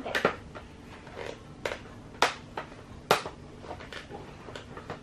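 Scissors snipping through a paper gift bag: a handful of sharp, irregularly spaced snips.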